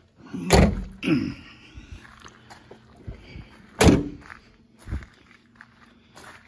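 Two heavy metal thunks about three seconds apart, the rear cargo doors of a 1989 Ford E-150 camper van being shut, with a short falling squeak just after the first. Lighter footsteps on gravel fall between them.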